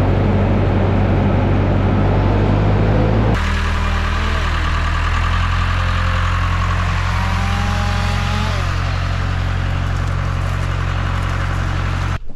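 Farm tractor engine running steadily. About three seconds in the sound cuts abruptly to a different engine note, with faint whines rising and falling as it works, and it cuts off suddenly near the end.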